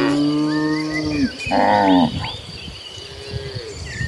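Cattle mooing in a herd: a long low moo ends about a second in, a shorter, louder call follows, and a fainter moo comes near three seconds.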